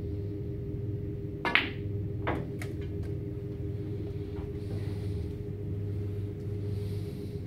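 Snooker shot: a sharp click of the cue and balls striking about a second and a half in, then three fainter clicks over the next second and a half as the balls knock together and hit the cushions. A steady low hum runs underneath.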